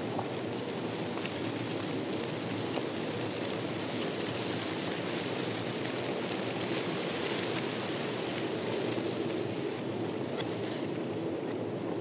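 Steady rush of wind, with faint scattered crunches of footsteps on a volcanic gravel path.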